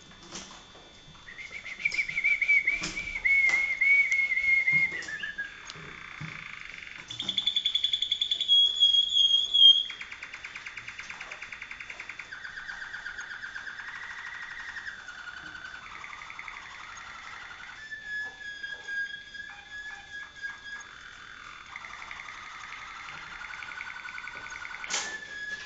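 Malinois (Waterslager) canary singing a continuous song of varied tours: a rippling whistled tour, then a louder, higher trill about seven seconds in, followed by a long stretch of softer, lower rolling trills.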